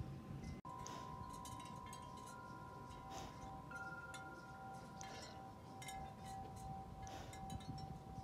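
Wind chimes ringing softly: several clear tones struck now and then, each ringing on for seconds.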